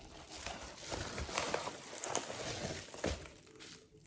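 Parcel packaging being handled and unwrapped by hand: irregular rustling and crinkling with scattered crackles and taps.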